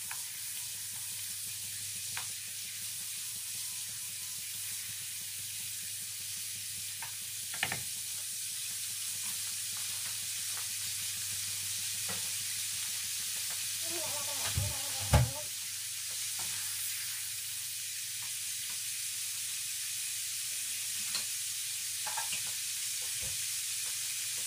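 Butter and cajun sauce sizzling steadily in a wok, with a few scattered small clicks and a louder knock about fifteen seconds in.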